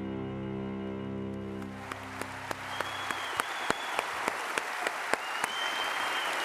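Soft sustained music fades out over the first two seconds as audience applause swells in, with sharp individual claps and two high whistles from the crowd.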